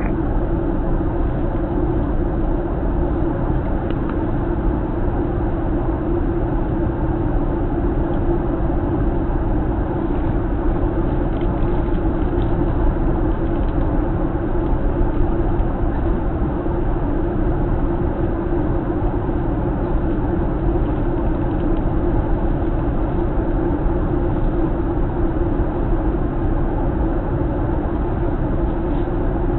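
Steady cabin noise inside a Boeing 737-900 on final approach: a constant rush of engines and airflow with a strong low hum, unchanging throughout.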